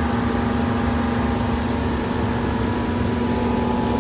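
A steady mechanical hum with several constant tones over a low rumble, unchanging throughout, from a machine running in the workshop.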